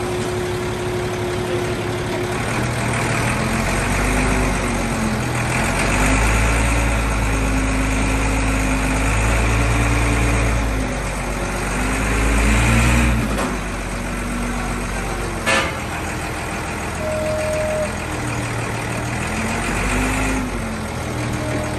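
Heli forklift engine running under load and revving up and down in repeated swells while the forklift inches a heavy machine, with a whine that rises and falls with the revs. One sharp knock comes about fifteen seconds in, and a short beep a little later.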